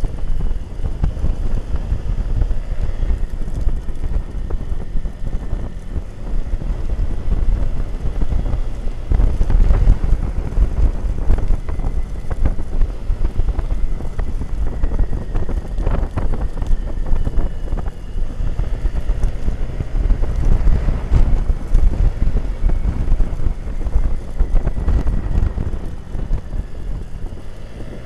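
Wind buffeting the microphone of a camera riding on a moving motorcycle, a heavy uneven rumble, with the motorcycle's engine underneath and a faint whine that drifts up and down in pitch as the bike works through the bends.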